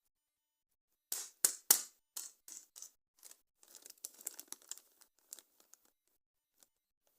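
Toy packaging being torn open by hand: three sharp tearing cracks a second in, the loudest of them near two seconds, then a run of softer crinkling and rustling that dies away.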